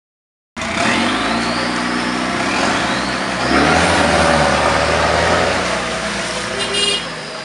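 Toyota Land Cruiser LJ73's diesel engine revving under load as it is pulled out of deep mud on a tow strap, its wheels spinning and throwing mud; the engine note rises about halfway through.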